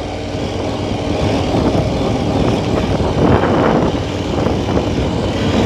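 KTM 1290 Super Adventure's V-twin engine running as the bike is ridden over rough ground, its revs rising and falling around the middle, with rushing riding noise mixed in.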